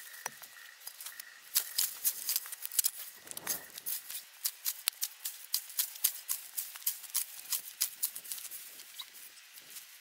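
Dry weeds and grass scraped and chopped off a ground mat with a long-handled, curved-blade weed cutter: crisp, irregular scraping and crackling strokes, several a second, with one longer rasping drag about three and a half seconds in.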